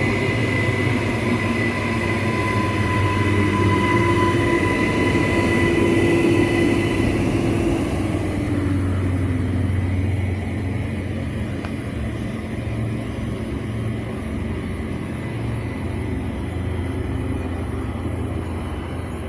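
Electric suburban trains passing at close range: a steady rumble of wheels on the rails, with high steady whines and a whine falling in pitch in the first seven seconds or so, fading as the train moves away.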